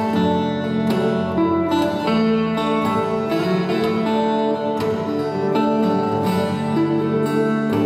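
Solo steel-string acoustic guitar playing an instrumental piece, plucked notes ringing over bass notes.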